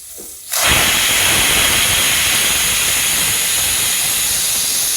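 Pressure cooker whistling: steam forced out under the weight, a faint hiss that turns loud about half a second in, holds steady and cuts off. This single whistle signals that the cooker is at full pressure and the dish is done.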